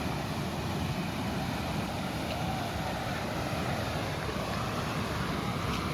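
Steady rushing outdoor noise with gusty low rumble: wind buffeting the microphone.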